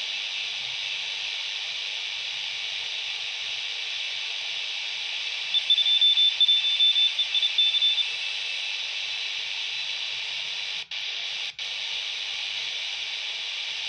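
Quansheng UV-K6 handheld receiving CW on the 10 m band: steady receiver hiss, with a high-pitched Morse code tone keyed in dots and dashes from about five and a half to eight seconds in. Two brief gaps cut the hiss about eleven seconds in.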